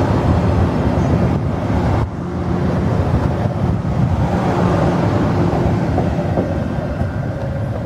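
Departing VIA Rail passenger train's LRC coaches rolling past close by: a steady rumble of wheels on the rails, dipping briefly about two seconds in.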